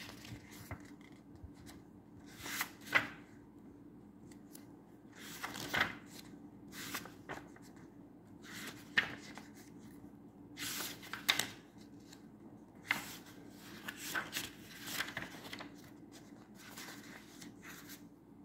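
Pages of a hardcover picture book being turned by hand, one after another, each a short paper swish and rustle, at irregular intervals of a second or two.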